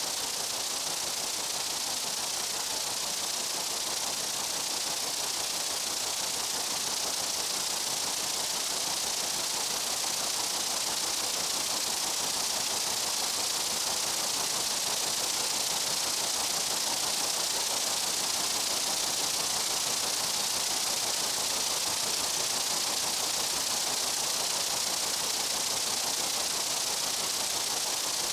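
A steady, even hiss of a dense insect chorus, strongest in the high register, with no single buzz or call standing out.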